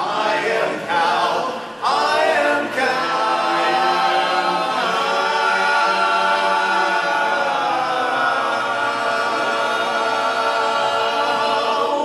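Eight-man barbershop group singing a cappella in close harmony. The men move through a few quick chords, then hold one long chord that cuts off together near the end.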